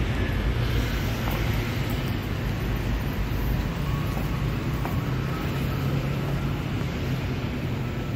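Steady city road traffic: a continuous low rumble of passing vehicles.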